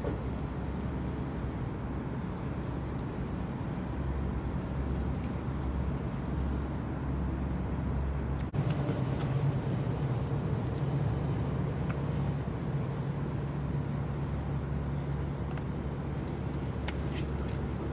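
Steady low mechanical hum of running engines with outdoor background noise, briefly cut off about eight and a half seconds in.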